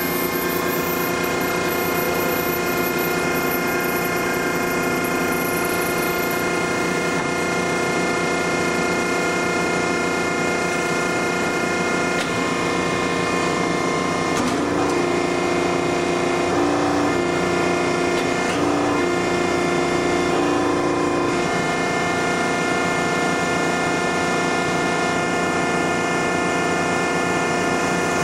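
1972 Marvel No. 15A/S automatic horizontal band saw running a cut through a bar, blade at about 175 feet per minute with coolant on: a steady machine hum made up of several steady tones. For several seconds midway, one tone flips back and forth between two pitches.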